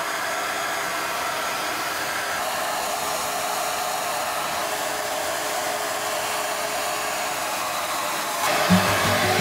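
Hand-held hair dryer blowing steadily while drying a puppy's fur. Music with a beat comes in near the end.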